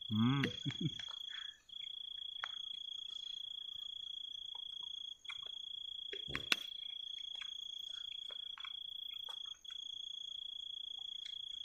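Crickets trilling: one steady, high, unbroken tone that stops briefly every few seconds, with faint scattered clicks and a short knock about six and a half seconds in.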